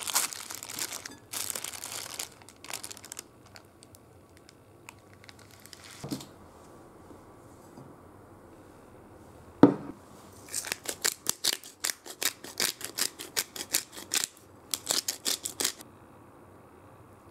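Thin polyethylene cooking bag crinkling as it is peeled off a bag-cooked omelette, then a knock and a louder knock. After that a run of quick sharp clicks, about four a second with a short break near the end, as black pepper is added over the omelette.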